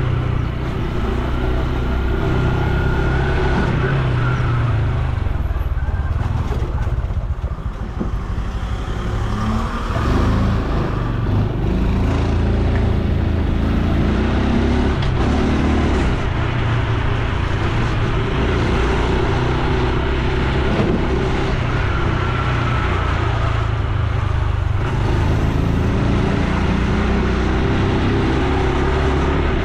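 Honda Super Cub C125's air-cooled single-cylinder four-stroke engine and exhaust, heard from the moving motorcycle. The engine note rises and falls with the throttle. It eases off around seven seconds in and pulls again about ten seconds in.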